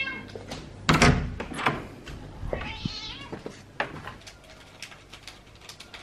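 Tabby house cat meowing for food, with one drawn-out meow that rises and falls about two and a half seconds in. A loud knock comes about a second in, followed by scattered small clicks and taps.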